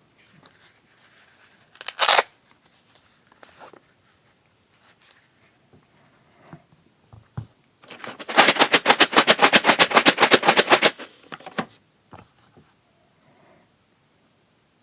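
Cardboard and plastic packaging of a keycap set being opened: a short rip about two seconds in, a few small handling clicks, then a rapid, even run of sharp clicks, about a dozen a second, lasting nearly three seconds.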